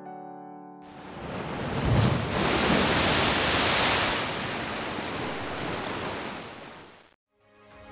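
A whooshing noise sweep marking a section title. It starts suddenly about a second in and swells to a low hit at about two seconds. It stays loud for a couple of seconds, then fades and cuts off shortly before the end. Background music fades out just before it.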